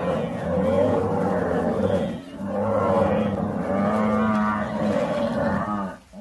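African buffalo bellowing in long, low, drawn-out calls, with a short break about two seconds in.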